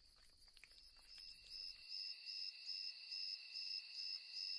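Night insects chirring: a high, rapidly pulsing trill over a lower steady tone, growing louder about two seconds in. Faint clicks are scattered through the first second.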